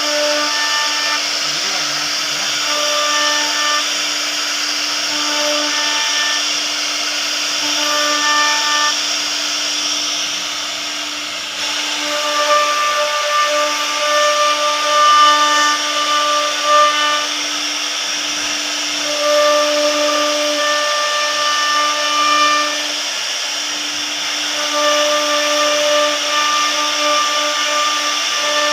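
CNC router carving a wooden door: the spindle runs steadily with a constant high cutting hiss, while the axis motors whine in short tones that switch on and off and change pitch every second or so as the head moves.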